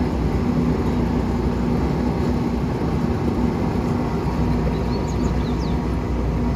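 Steady outdoor rumble and hiss with a faint low hum, and a few short bird chirps about five seconds in.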